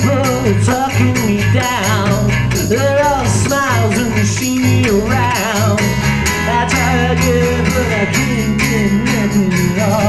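Small band playing: steadily strummed acoustic guitar over low bass notes, with a lead melody line that bends and wavers in pitch.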